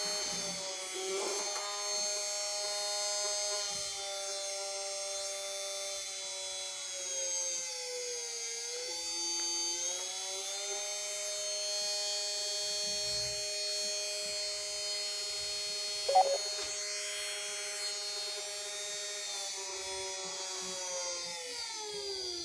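Small 12-volt DC motor running from a battery through a knob speed regulator, a steady electric whine with a high-pitched edge. Its pitch dips and recovers partway through and drops near the end as the knob turns the speed down and up, with one brief click about two-thirds of the way in.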